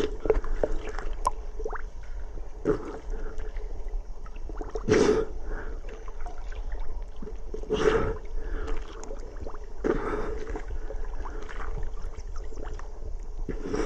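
River water lapping and sloshing against a camera held at the surface, with a louder slosh every two to three seconds.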